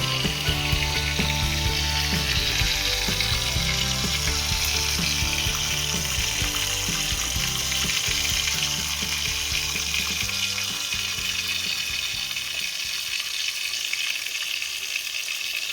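Music with a moving bass line and a dense, hissy high end, the bass dropping away over the last few seconds before it cuts off abruptly.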